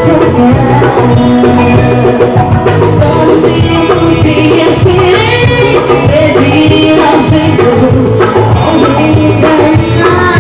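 Live band music played loud through a PA: a woman sings into a microphone over a steady drum beat, bass and electric guitar.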